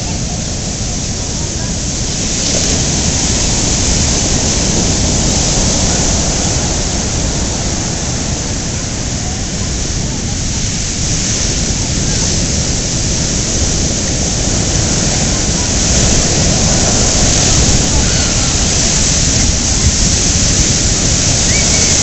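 Loud, steady rush of hurricane wind and heavy surf, with a constant low rumble, swelling slightly a few seconds in and again later.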